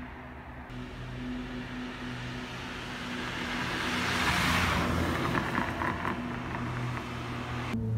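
A car passes on the road, its engine and tyre noise rising to a peak about halfway through and then fading, over a faint low steady hum.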